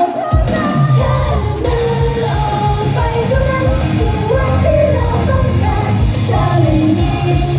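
Female idol group singing live into microphones over loud amplified pop music. The bass and beat come in just after the start and run on under the vocal line.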